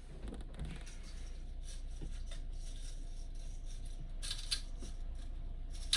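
Plastic front grill and filter of a window air conditioner being worked onto the unit, rubbing and scraping, with a louder rustle about four seconds in and a click near the end, over the steady low hum of the air conditioner's fan.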